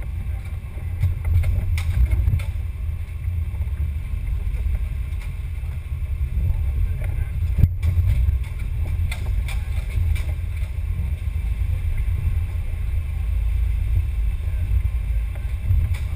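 Onboard sound of an RC rock crawler driving over a rough dirt trail: a steady low rumble of the chassis and body shaking, with scattered knocks as it goes over roots and ruts, the sharpest about eight seconds in.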